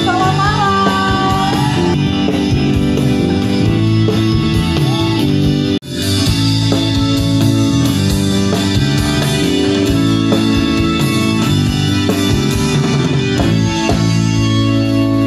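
Live rock band playing amplified: electric guitar, bass and drums, with a voice singing over the first second or so. The sound drops out abruptly for an instant about six seconds in, then the music carries on.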